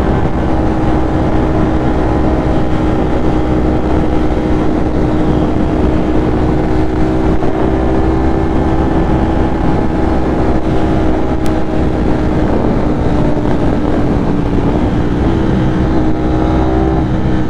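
Ducati motorcycle engine pulling at a steady high-speed cruise, one held engine note, under heavy wind rush over the mic.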